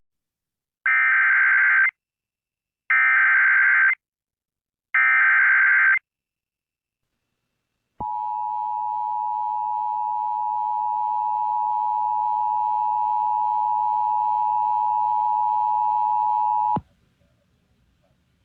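Emergency Alert System SAME header: three one-second bursts of warbling digital data tones about a second apart. Then comes the steady two-tone EAS attention signal, held for about nine seconds before it cuts off. Together they mark the start of a new emergency alert broadcast.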